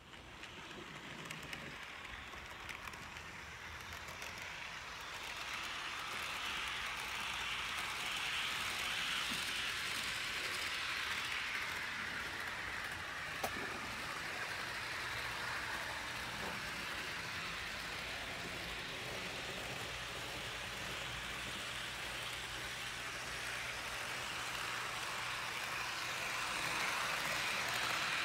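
Fleischmann H0-scale DB class 221 diesel locomotive model running with a train of passenger coaches: a steady whir of its motor and hiss of its wheels on the track, getting louder about five seconds in and again near the end, with one sharp click about halfway.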